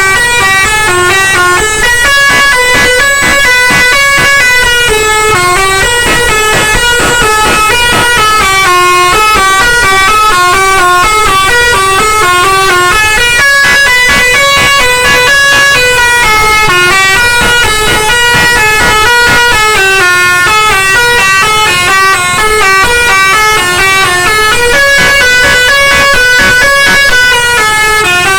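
Basuri musical horn playing a tune: a quick run of stepped notes that rise and fall without a break, the same melodic phrase repeating about every ten seconds.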